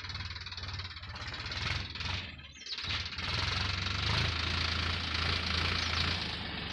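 Sonalika tractor's diesel engine running steadily as it pulls a level plate across a field, growing louder from about three seconds in as it comes closer.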